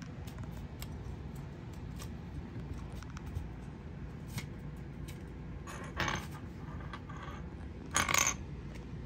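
Kittens playing on a hard floor: faint scattered clicks and scuffs, with two short, louder rustling scrapes, one a little past halfway and one near the end.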